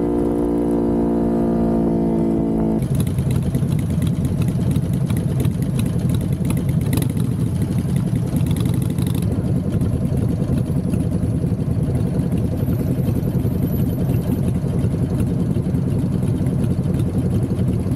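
Kawasaki Ninja 400 parallel-twin engine running under way, a steady engine note sinking slightly in pitch as the rider eases off. About three seconds in it changes to a rougher, lower rumble of engine and wind.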